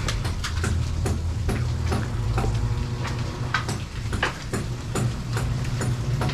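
Building-site work: a machine hums steadily under a string of sharp, irregular knocks and taps, a few a second.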